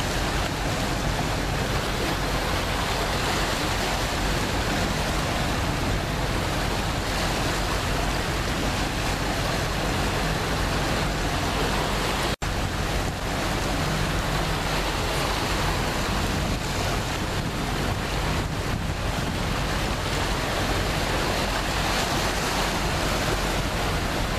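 Small sea waves washing and breaking over shoreline rocks in steady surf, with wind rumbling on the microphone. The sound cuts out for an instant about halfway through.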